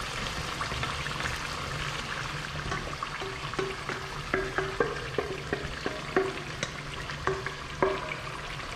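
Chicken frying and bubbling in a pot: a steady sizzle, with irregular short pops coming about twice a second from about three seconds in.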